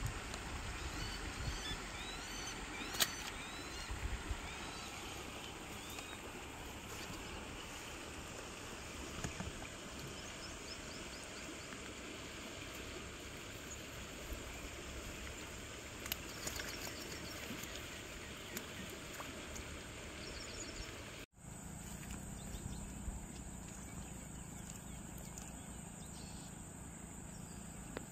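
Outdoor waterside ambience: a steady background hiss with scattered small chirps and a few soft clicks. About 21 s in the sound cuts out for a moment, then comes back as a steady insect drone.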